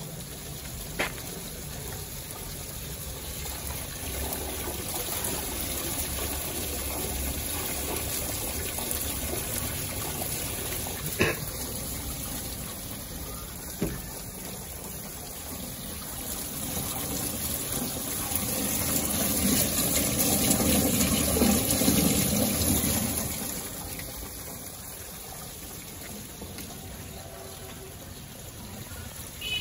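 Steady rush of running water, swelling louder for a few seconds about two-thirds of the way through, with a few sharp clicks.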